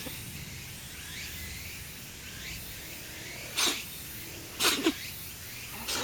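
A cat sneezing over and over in a long fit: one sneeze about three and a half seconds in, two in quick succession about a second later, and another right at the end.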